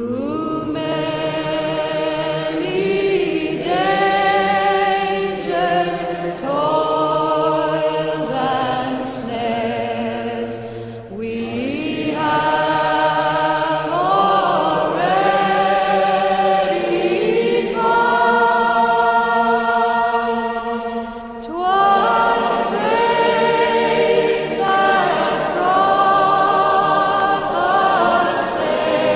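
Choir singing a cappella in slow, sustained chords, with brief pauses between phrases about eleven and twenty-one seconds in.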